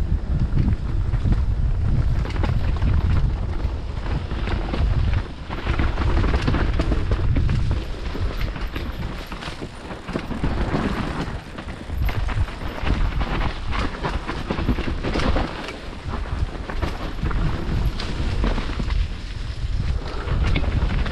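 Wind rumbling on a GoPro Hero 9 action camera's microphone during a fast downhill mountain-bike ride on a dirt trail, with the bike rattling and knocking over the rough ground. The rumble swells and dips as the speed changes.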